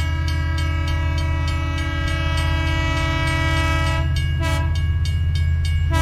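Long multi-tone horn held over a deep steady engine rumble, breaking off about four seconds in, with a short blast and then the horn sounding again near the end.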